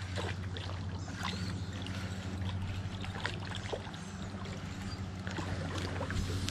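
Spinning reel being cranked and the rod handled while a hooked rainbow trout is reeled in, giving scattered clicks and taps over a steady low hum.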